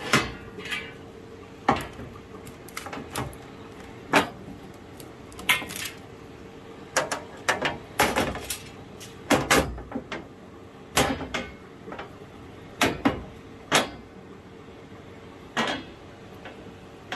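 Irregular clunks and clicks as the cover and parts of a laser welding machine are handled and fitted, over a steady low hum.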